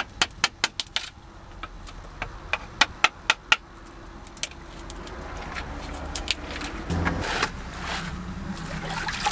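A hammer tapping a pointed marking tool against a pipe, a quick run of sharp taps to nick a line into its surface. From about five seconds in, a wet cloth or sponge scrubbing mud and water off the pipe.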